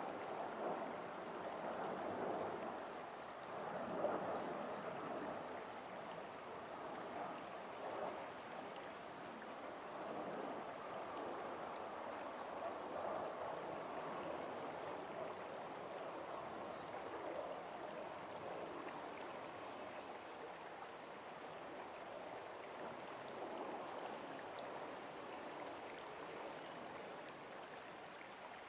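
Creek water flowing and babbling steadily.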